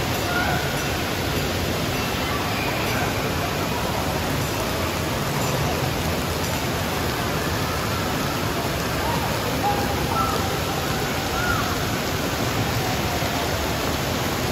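Steady rushing and splashing of water pouring from a water park's splash play structure and running down its water slides, with faint distant voices calling out now and then in the second half.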